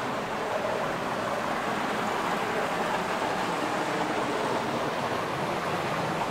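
A stream of water flowing and splashing steadily.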